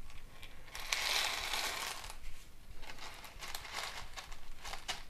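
Expanded clay pebbles crunching and clicking against each other and the plastic pot as gloved hands press them in around a plant's base. The sound comes as a few short spells of gritty rustling with scattered clicks.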